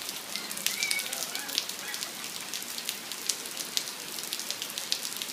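Light rain falling, with a steady hiss and many separate drops hitting hard surfaces at irregular moments.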